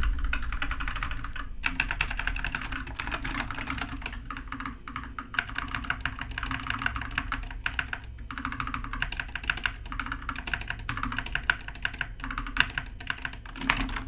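Fast typing on two 60% mechanical keyboards in turn: an Epomaker Skyloong SK61 with Gateron Optical Yellow linear switches and a DIERYA DK61E with brown tactile switches. It makes a steady clatter of keystrokes, broken by a few brief pauses.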